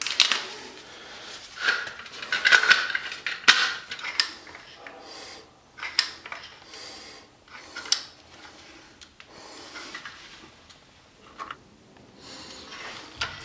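Handling noise from dispensing two-part epoxy concrete repair out of a cartridge through its mixing nozzle around a PVC toilet flange: irregular clicks and short scraping sounds, busiest in the first few seconds.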